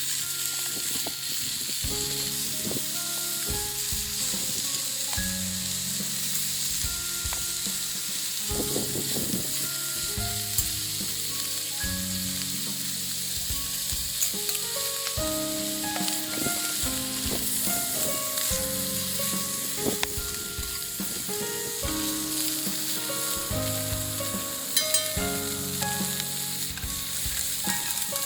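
Food frying in a hot pan with a steady sizzle and a few sharp crackles near the end, under background music.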